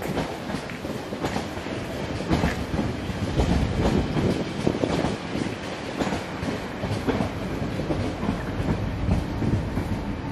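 A train running past, its wheels clacking steadily over the rails.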